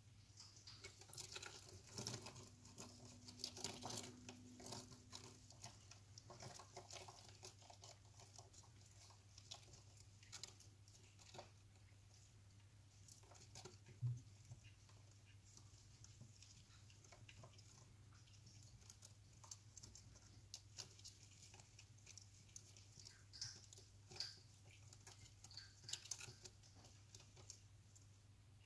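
Faint, scattered scratching and clicking of giant peppered cockroaches' legs on rock, busiest early on and again near the end, with one sharper tap about halfway, over a steady low hum.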